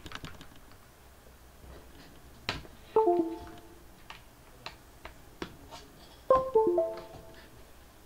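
Two short descending chimes of a few clear notes each, about three seconds apart, with scattered light clicks around them.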